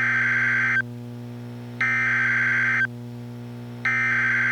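NOAA Weather Radio EAS/SAME header: three screeching bursts of digital data tones, each about a second long with about a second between them. The header announces a Child Abduction Emergency (AMBER Alert) activation.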